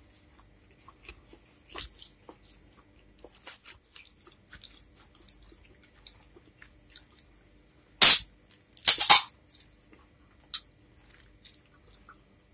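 Red Bull aluminium can handled with light clicks and scratches of fingers on the metal. About eight seconds in the pull tab is cracked open with a loud sharp snap, followed a moment later by a short fizzing hiss of the carbonated drink.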